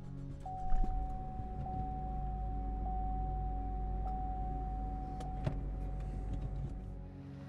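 A car's electric motor or engine running: a steady high whine over a low rumble. It starts with a thump about a second in and dies away near the end.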